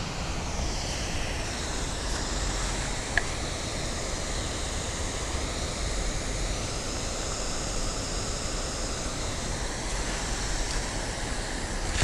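Steady rushing of flowing creek water, with one faint click about three seconds in.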